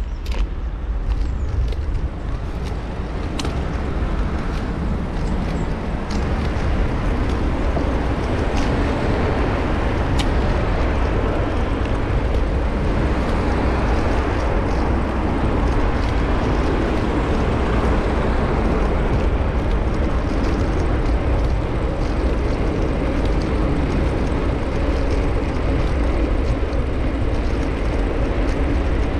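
Road traffic and wind rushing over a bicycle-mounted action camera's microphone while cycling: a steady noisy rush with a strong low rumble. It grows louder over the first few seconds, with a few sharp ticks.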